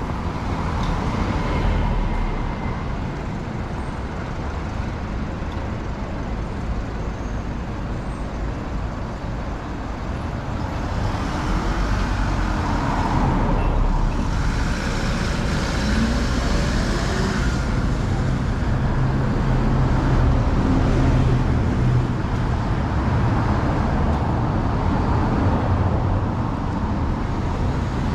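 City street traffic with vehicles driving past. A low engine rumble builds about a third of the way in and stays strong through the second half.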